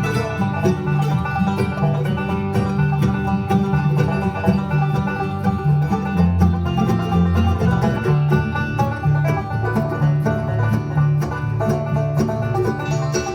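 Live band playing an instrumental break between verses of a song, plucked strings carrying the tune over a steady bass, with no singing.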